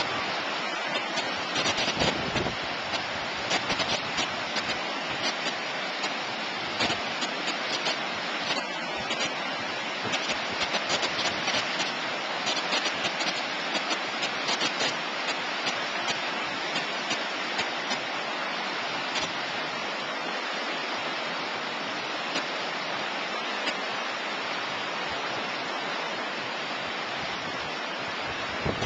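Steady rushing of high spring floodwater pouring over a river dam and churning through the whitewater below it.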